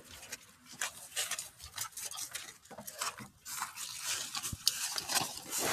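Irregular soft rustling, scuffing and small clicks close to the microphone, with no steady tone.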